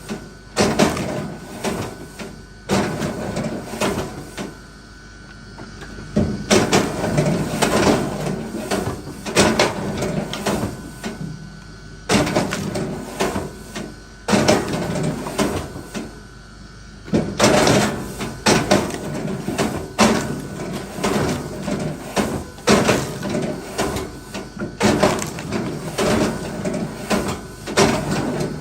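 Wood being worked by hand: irregular bursts of knocking and scraping, each a second or two long, with short quieter gaps between.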